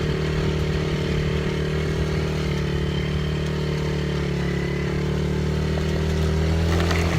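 Four-wheeler (ATV) engine running steadily, its pitch shifting slightly about four seconds in and rising a little near the end.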